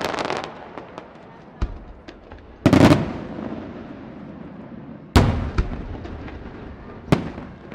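Aerial firework shells bursting: dense crackling from falling stars dies away in the first half second. Then come a small bang, two loud booms about three and five seconds in, and another bang near the end, each trailing off in a long echo.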